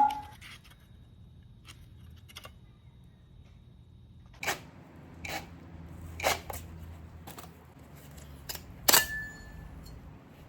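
Sharp clicks and metal knocks from hand tools and parts while a replica Akrapovic exhaust muffler's carbon end section is taken apart. A few faint clicks come first, then louder knocks about once a second from about four and a half seconds in; the loudest, near nine seconds, rings briefly. A low steady hum runs underneath.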